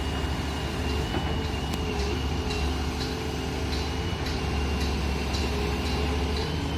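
Heavy diesel machinery running steadily, a continuous low engine drone with a thin steady whine above it.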